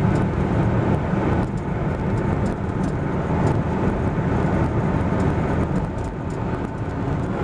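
Car driving at motorway speed, heard from inside the cabin: a steady rumble of engine and tyre noise.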